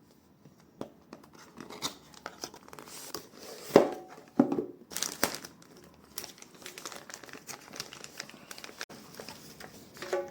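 Product packaging being opened by hand: a retail box unsealed and unwrapped, with crinkling and tearing and many small handling clicks. A few sharper snaps or knocks come around the middle, the loudest about four seconds in.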